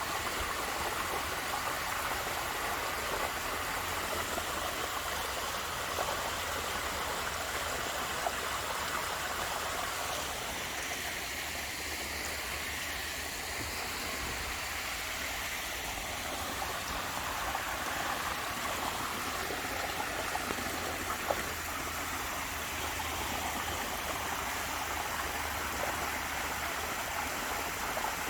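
Water of a small waterfall falling and splashing steadily.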